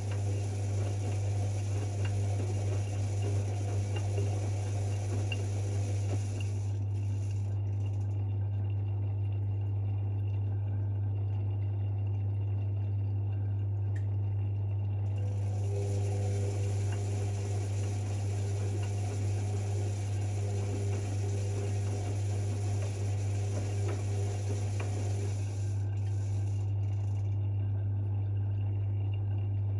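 Privileg 5020 front-loading washing machine partway through a wash cycle: a steady low hum under the sound of the drum working the wet laundry. The washing noise stops about seven seconds in, starts again about halfway through and stops again near the end, in a turn-and-pause wash rhythm. Its motor, from years of laundrette service, sounds worn.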